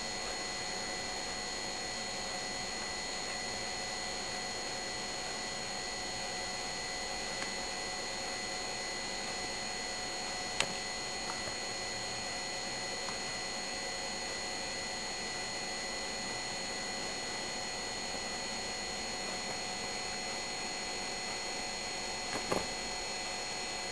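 Steady hiss and hum with a few faint constant whining tones, with a single sharp click about ten seconds in and a couple of light taps near the end.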